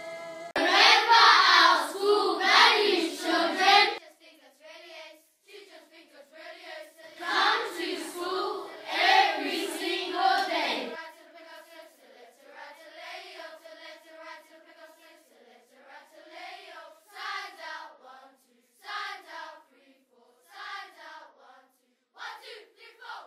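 A group of children singing together; loud in the first half, then softer short phrases with pauses between them.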